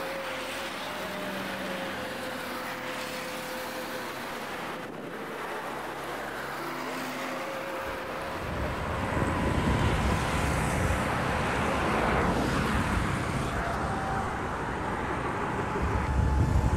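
Road traffic noise on a city street: a steady hiss of passing vehicles, with a low rumble that grows louder about halfway through.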